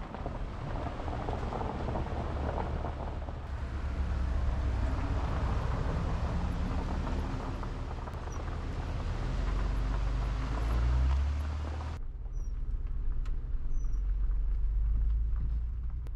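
A vehicle driving, with a steady low rumble of engine and tyres and an engine note that rises and falls. The sound changes abruptly about twelve seconds in.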